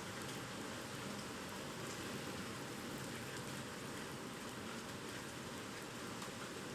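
Typhoon rain falling steadily: an even hiss with scattered ticks of drops.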